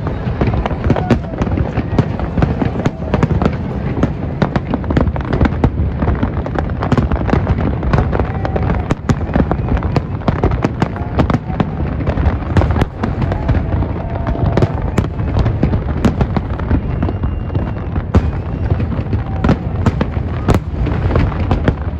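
Fireworks show: a continuous barrage of aerial shell bursts, many sharp bangs close together over a steady rumble, with no let-up.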